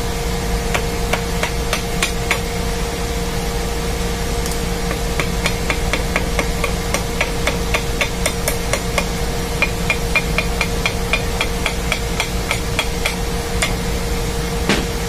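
Light metal taps, irregular and then a quick run of about three a second, with one heavier knock near the end: the end shield of an electric pump motor being tapped loose to get at its bearings. A steady engine-room machinery hum runs underneath.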